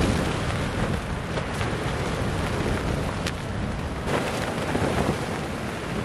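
Strong wind buffeting the microphone in a steady, loud rush with a heavy low rumble, and a few faint clicks about halfway through.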